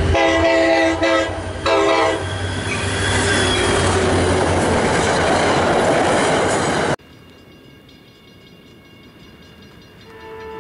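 Train horn blowing a multi-tone chord, breaking off and sounding again, then the loud rush of a train passing at speed, wheels on rail. About seven seconds in it cuts to a much quieter scene, and a distant train horn sounds near the end.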